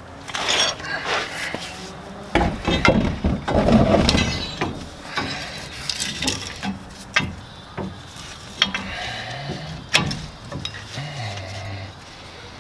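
Clinks, clanks and knocks of steel parts being handled as an add-a-leaf is worked into a truck's rear leaf spring pack, busiest and loudest a couple of seconds in, then single sharp knocks now and then.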